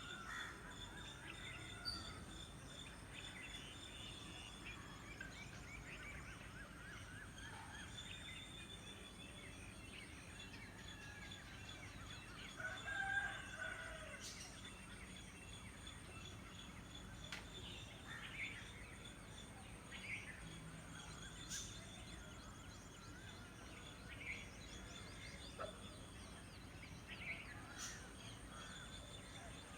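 A rooster crows once near the middle, over small birds chirping and trilling.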